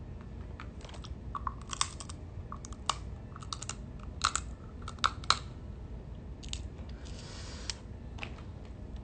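A person biting and chewing food from a seafood boil, with a run of short, sharp crunching clicks in the first half and a brief soft hiss later on.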